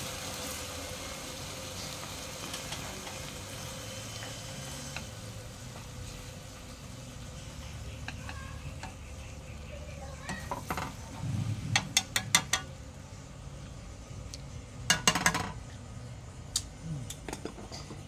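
Fermented snakehead fish pieces frying in bubbling oil in a small metal wok, a steady sizzle. Wooden chopsticks click and knock against the pan in quick clusters about halfway through and again a few seconds later.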